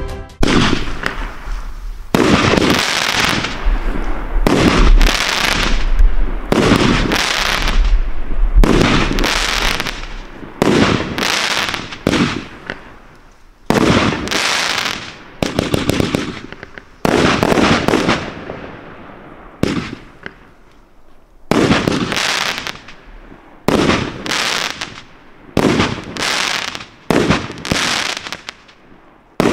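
Panda Fireworks PS-23120 26-shot fireworks cake firing its shots one after another: sharp bangs, each with a fading tail, about one a second. They are loudest and closest together in the first ten seconds, then come with short gaps between them.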